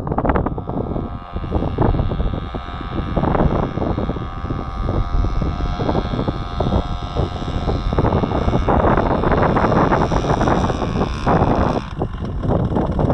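Homemade fixed-wing drone's motor and propeller running at a steady pitch in flight, over heavy wind noise on the microphone. The engine tone drops away near the end as the plane touches down.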